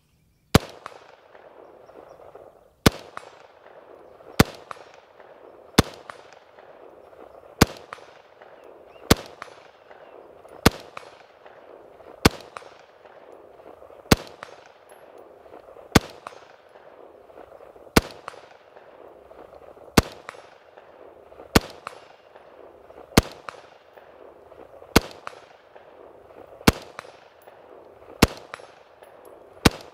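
LMT MARS-L 5.56 mm rifle fired in slow, aimed semi-automatic fire: about eighteen single shots, one every 1.5 to 2 seconds.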